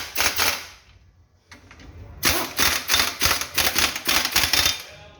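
Pneumatic impact wrench hammering in two trigger bursts, a short one ending about half a second in and a longer one of about two and a half seconds, as bolts are loosened during engine disassembly.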